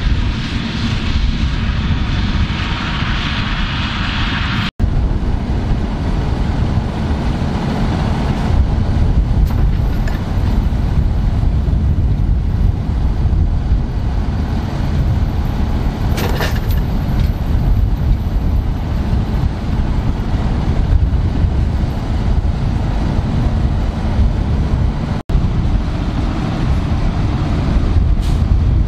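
Fendt Vario 820 TMS tractor's six-cylinder diesel engine running steadily with a heavy low rumble. For the first few seconds the Dragone butterfly flail mulcher is chopping the catch crop, adding a hissing rush; the sound then cuts abruptly to the tractor running with the mulcher wings raised, and cuts again near the end.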